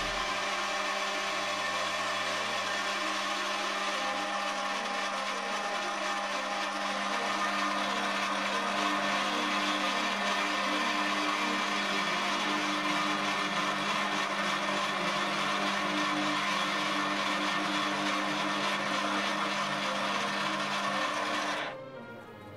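Small electric machine tool running steadily with a whirring motor and a constant hum, then cutting off abruptly near the end.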